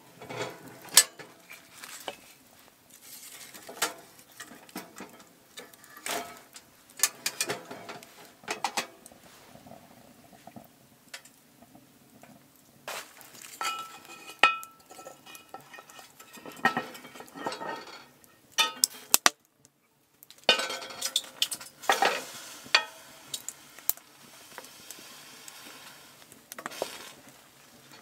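Intermittent clanks, knocks and scrapes of metal cooking gear on a wood-burning tent stove: the stove door is handled, and the cast iron Dutch oven's lid is lifted, with a brief metallic ring about halfway through. Near the end a wooden spoon stirs the thick stew in the pot.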